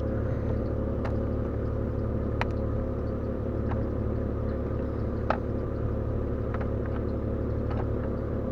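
A steady low engine-like hum, with a few light clicks and taps scattered through it.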